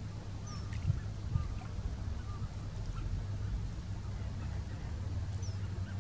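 Waterbirds on the lake calling: a few short calls in the first half and a higher one near the end, over a steady low rumble.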